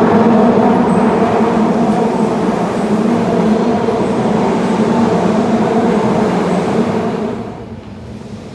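Midosuji Line subway train running loudly along the platform, with a steady hum under the rumble. It falls away sharply about seven seconds in.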